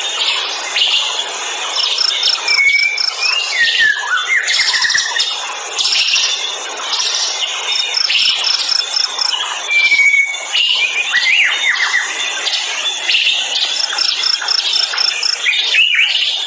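Forest soundscape of many birds calling and chirping over a steady hum of insects. A quick run of high, evenly spaced pips comes three times, about six seconds apart.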